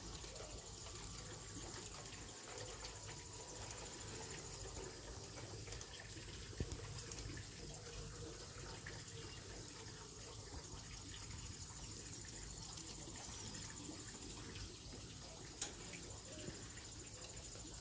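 Outdoor summer ambience: a high, steady insect trill over an even hiss and a low rumble, with two sharp clicks, one about six seconds in and one near the end.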